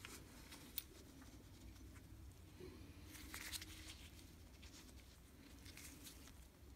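Faint handling noise of nitrile-gloved hands working small metal drill parts: a single sharp click about a second in and a brief scratchy rustle about halfway through, over a faint low hum.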